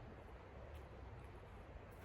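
Near silence: faint steady low hum and hiss, with a couple of faint soft ticks.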